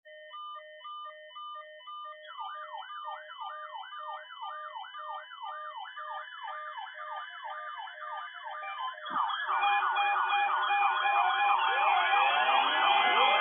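Electronic alarm sounds: short repeated beeps at first, then fast rising-and-falling siren sweeps, about three a second, join in about two seconds in. More overlapping siren layers pile up and the sound gets louder from about nine seconds on.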